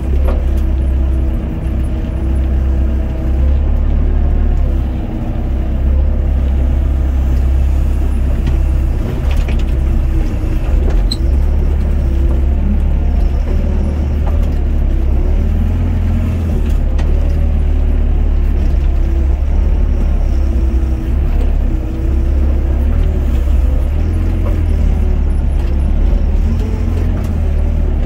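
Doosan DX55 mini excavator's diesel engine and hydraulics running under load, heard from the operator's seat as the boom and bucket work soil. A deep steady rumble with a fainter tone that wavers in pitch.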